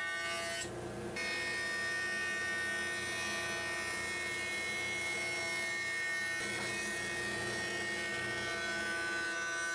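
Jointer running as glued-up hardwood blanks are fed across its cutterhead to flatten one face: a steady machine hum made of several held pitches, with a short dip about a second in.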